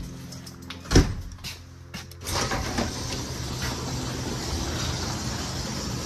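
A door banging shut with a single thump about a second in, followed from about two seconds in by a steady rushing noise.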